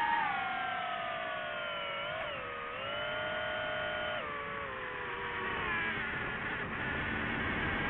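Electric motor and propeller of a drone whining in flight, the pitch falling as the throttle eases off, with a brief wobble up about two seconds in and a step down at about four seconds. The whine then sinks into a steady rush of noise.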